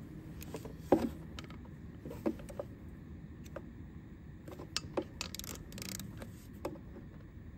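Scattered metallic clicks and knocks of a hand wrench on the timing belt tensioner bolt, the loudest about a second in, as the bolt is turned through its final 45-degree angle-tightening stage.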